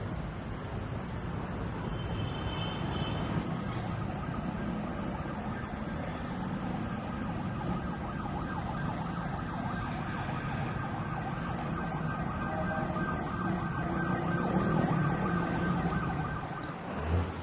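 Steady city street traffic noise, with a faint distant siren-like tone holding through the middle. A low thump comes right at the end.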